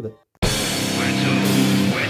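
Loud rock music starts abruptly about half a second in.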